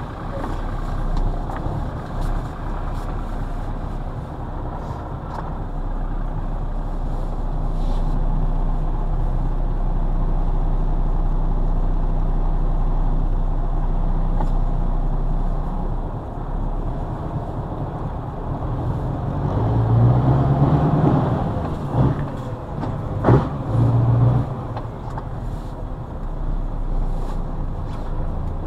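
Scania 142M's V8 diesel engine heard from inside the cab as the truck drives along. About two-thirds of the way through the engine rises in pitch and loudness, and two short sharp clacks cut through it.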